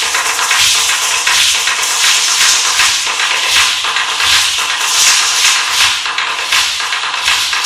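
Aztec dancers' ayoyote seed-pod ankle rattles shaking in surges with their stamping steps, over a huehuetl drum beaten about once a second.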